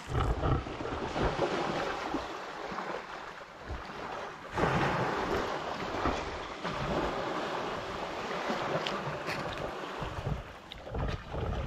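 Wind buffeting the microphone over the wash of the sea, with uneven low thumps.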